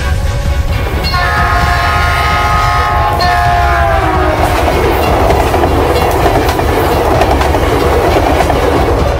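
Train passing with its locomotive air horn sounding a multi-note chord: one blast about a second in, then a second blast that slides down in pitch. Under the horn is a steady rumble of the train running on the rails.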